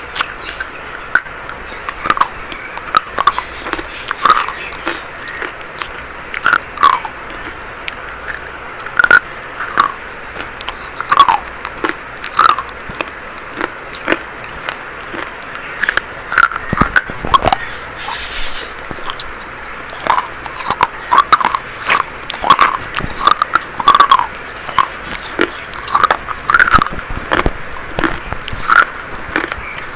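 Dry chalk being bitten and chewed: irregular crisp crunches, about one or two a second, over a steady hiss, with a short gritty crumbling about two-thirds of the way through.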